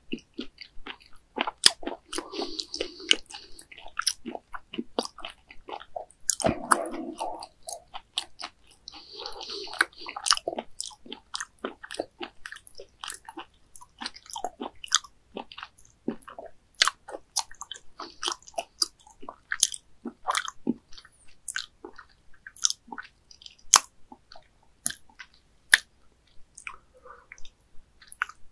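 A person chewing a mouthful of raw whole baby squid: a steady run of short, wet mouth clicks, with a few longer, fuller stretches of chewing about two, seven and nine seconds in.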